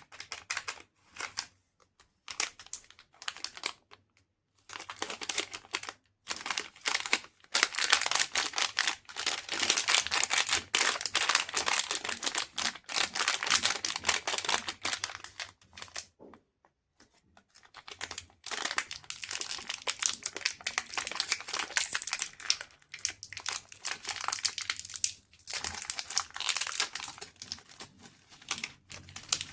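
Chocolate wrappers being crinkled and torn open. The dense crackling comes in bursts, with short pauses, the longest about two-thirds of the way through.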